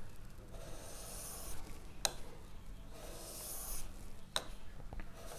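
Plane blade rubbed back and forth on a wet Japanese water stone while its back is flattened at the front edge: faint scraping strokes about a second long, with two sharp clicks in between.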